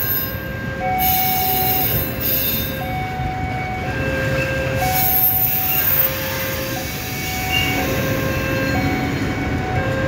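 Train of railway fuel tank wagons hauled by a diesel locomotive rolling slowly past, a steady low rumble. Over it, held high tones come and go one after another at different pitches.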